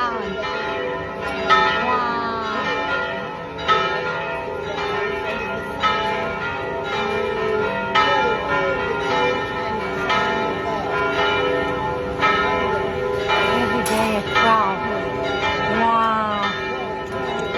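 Church bells ringing together, a fresh strike about every two seconds over a long, layered ring that never dies away.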